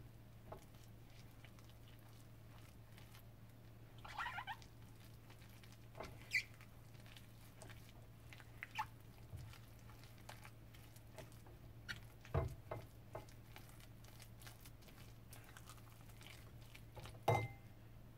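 A spoon stirring a thick batter of grated lotus root, vegetables, egg and pancake mix in a bowl: soft scrapes and scattered clicks of the spoon against the bowl, with sharper knocks about twelve and seventeen seconds in, over a steady low hum.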